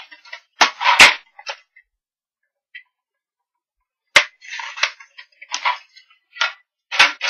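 Plastic paper trimmer handled on a tabletop: sharp knocks as it is set down and moved, and a short scraping slide of the cutter along its rail just after four seconds in, cutting a strip of paper.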